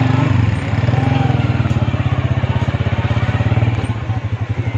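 Motorcycle engine running steadily with a rapid, even beat.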